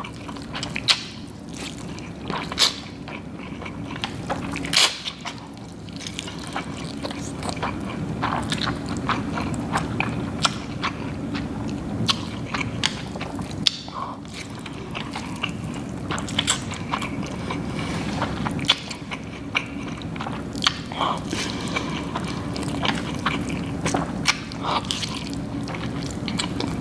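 Close mouth sounds of a person eating noodles: chewing and slurping with many short wet clicks at an irregular pace, over a steady low hum.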